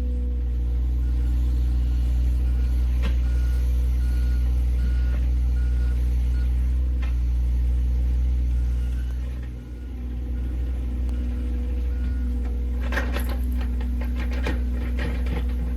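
Diesel engine of heavy construction equipment running steadily, with a repeating backup-alarm beep over the first part; the engine note dips briefly past the middle. Near the end, a run of clattering and scraping knocks.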